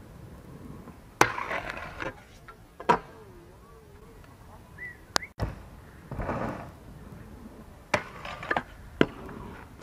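Stunt scooter tricks on a metal flat rail. There are sharp clacks of the scooter hitting and landing, about a second in, near three seconds, past five seconds, and twice near the end. Short grinding scrapes follow the first clack and the one near eight seconds, and the wheels roll on asphalt in between.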